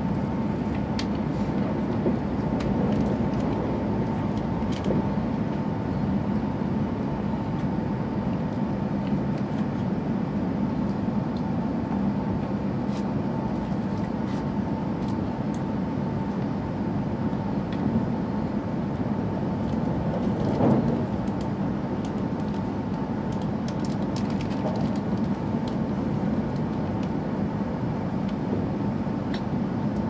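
Steady running noise of a W7 series Hokuriku Shinkansen heard inside the car: a constant low rumble with a steady high whine, and faint scattered ticks.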